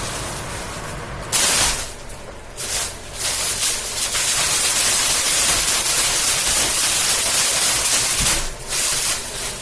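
Plastic grocery bag thrashing against the blades of a running Amazon Basics box fan and being shredded: a loud, dense rustling rush that dips briefly about two seconds in and again near the end.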